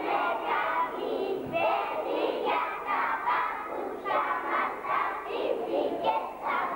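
A chorus of young children's voices, many voices together in unison with syllables following one after another without pause.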